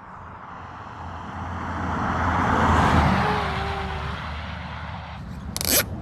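A vehicle passing by on the road, its noise swelling to a peak about halfway and then fading away. A short sharp knock comes near the end.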